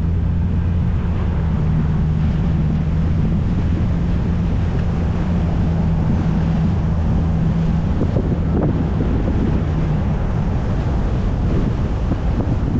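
Wind buffeting the microphone of a car being driven, over steady road noise. A low engine hum fades out about halfway through.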